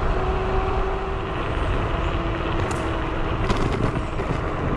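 Varla Eagle One 2.0 dual-motor electric scooter riding at about 22 mph: steady wind buffeting on the microphone and tyre rumble, with a faint steady whine from the hub motors. A few rattles as it goes over bumps near the end.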